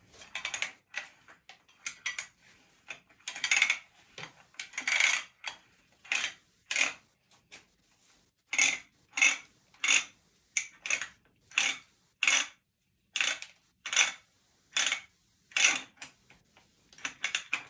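Manual ratcheting pipe threader being backed off a freshly cut thread on steel pipe, its ratchet set to reverse. A series of metallic ratchet clicks and clanks: a few longer scraping strokes in the first several seconds, then short, evenly spaced clicks about one or two a second.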